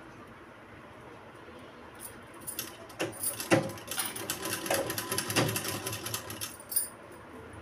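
Sewing machine running in a burst of stitching: a fast, even clatter of the needle mechanism that starts about two and a half seconds in and stops shortly before the end, with two louder knocks in the middle.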